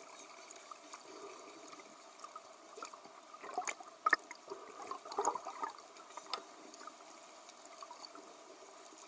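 Faint underwater water ambience with scattered bubbling pops.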